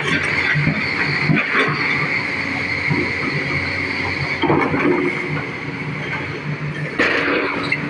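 Excavator's diesel engine running under load with a steady high-pitched hydraulic whine, rising in a louder surge about halfway through and again near the end.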